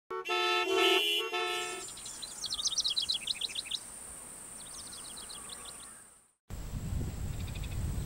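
A short chord of held tones for about the first two seconds, then songbird chirping in two quick runs that fades out. After a brief gap, about six and a half seconds in, low wind rumble on the microphone with a few faint bird chirps.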